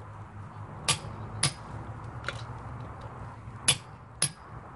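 Click-type torque wrench clicking on a wheel lug nut as it reaches its set torque of 80 lb-ft. Two pairs of sharp metallic clicks, each pair about half a second apart, come about a second in and near the end, with a fainter click between them.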